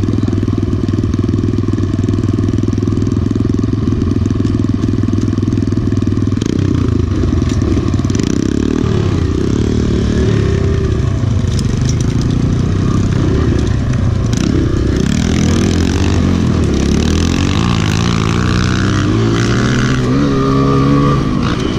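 Kawasaki KLX pit bike's small four-stroke single-cylinder engine idling steadily, then pulling away about eight seconds in, its pitch rising and falling with the throttle as the bike is ridden.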